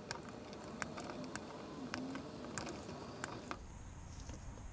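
Wire cutters snipping thermostat wires in a wall box, with gloved hands handling the wires: about seven sharp clicks at irregular intervals over soft rustling.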